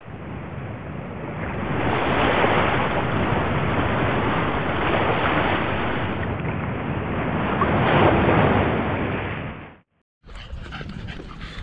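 Ocean surf breaking on a rocky shore: a loud, steady rush that swells twice as waves come in. It cuts off suddenly near the end, and after a brief silence a quieter outdoor background with faint ticks begins.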